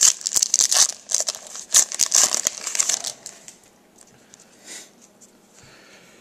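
Foil wrapper of a trading-card pack crinkling and tearing as it is ripped open and pulled off the cards. It is loud and busy for the first three seconds, then there is one brief rustle.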